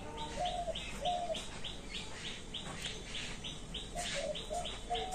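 Birds chirping: a steady run of short high chirps, about three a second, with a few lower short calls near the start and again near the end.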